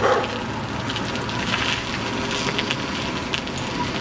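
Bicycle rolling along a gravel track: a steady rough rolling noise scattered with small clicks and crackles, with a brief louder burst right at the start.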